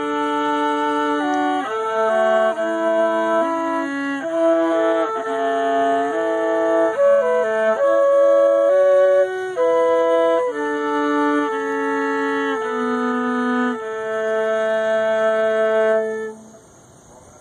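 Flute and viola playing a slow duet in held notes, the viola on the lower line beneath the flute. The music ends about a second before the close.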